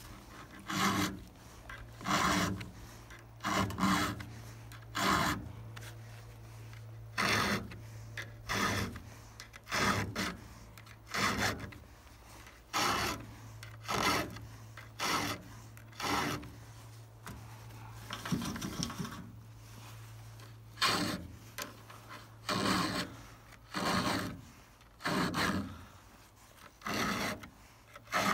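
A round file rasping across the cutters of a Stihl chainsaw chain: short, even strokes about one every second and a half as the chain is hand-sharpened, with a brief pause in the middle. A steady low hum runs underneath.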